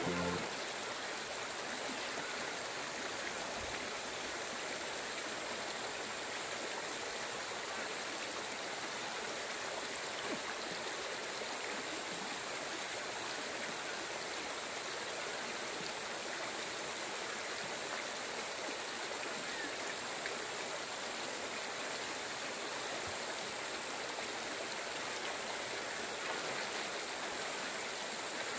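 Shallow river water flowing past, a steady even rushing.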